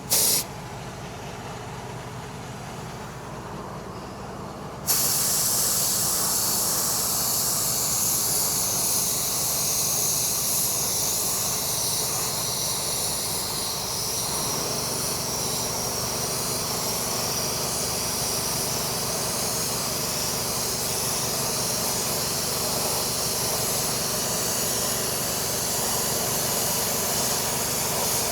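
Paint sprayed onto an alloy wheel: a short hissing burst of spray, then about five seconds in a long continuous spray hiss as the dark hyper silver base coat goes on, over a steady background hum.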